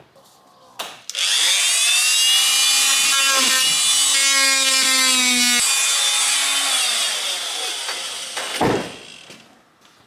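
Power saw cutting into a wooden board, starting about a second in and running steadily with a whine for about six seconds before fading away. A single knock near the end.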